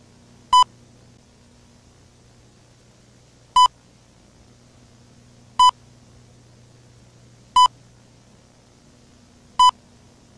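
Five short electronic beeps, each a high tone near 1 kHz with a buzzy edge. The first comes about half a second in and the rest follow roughly every two seconds. A faint low hum and hiss run underneath.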